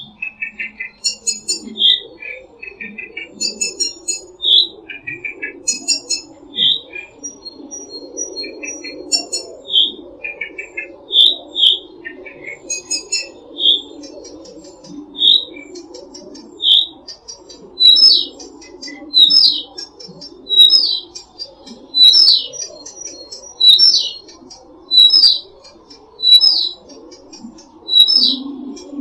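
Songbirds singing. One bird repeats a short, sharp chirp about every one and a half seconds, and in the first half other birds add quick trilled phrases, some high and some lower. A steady low chorus runs beneath the birds throughout.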